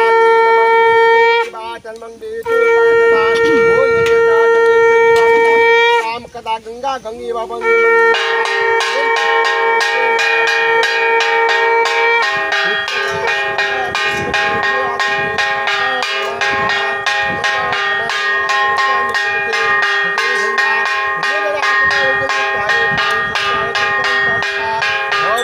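Conch shells (shankha) blown in long steady blasts for a puja. From about eight seconds in, several conches sound together at different pitches while a bell is rung rapidly.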